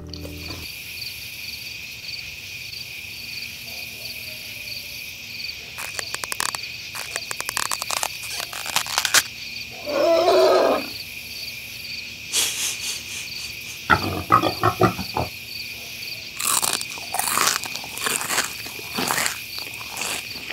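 Crickets chirping steadily, with clusters of sharp crisp crunches from crunchy bites of a breadcrumb-coated fried corn dog. A short low grunt-like vocal sound about ten seconds in is the loudest sound.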